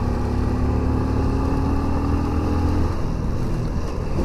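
Motorcycle engine pulling up a steep climb in low gear, its note rising slowly, then falling away about three seconds in.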